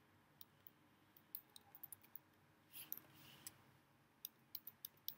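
Faint, irregular clicks of computer keyboard keys being typed, in small clusters with short pauses between.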